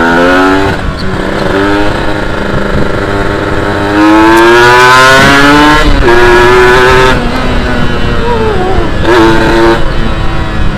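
Kawasaki Ninja 150 SS two-stroke single-cylinder engine under hard acceleration. Its pitch climbs and drops sharply several times as it shifts up through the gears. The longest and loudest pull comes about four seconds in, then the engine eases off and falls in pitch near the end.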